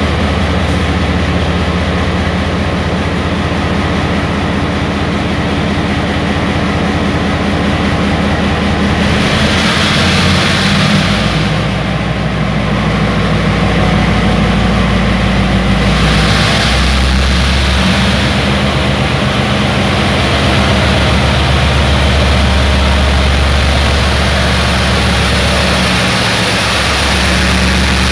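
Taiwan Railways R101 diesel-electric locomotive's engine running loud as it pulls its train slowly away and draws past. The engine note changes around eleven and again around seventeen seconds in, with two stretches of hiss around ten and sixteen seconds in.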